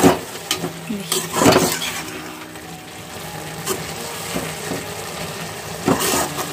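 Metal spatula stirring and scraping green-onion and pea sabzi in a kadhai, with louder scrapes at the start, about a second and a half in, and near the end, over the sizzle of the vegetables cooking in their own water.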